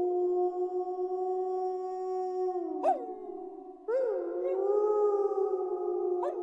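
Several wolves howling together in long, overlapping held notes. A new howl comes in just before the 4-second mark with a rising start, over the ongoing chorus.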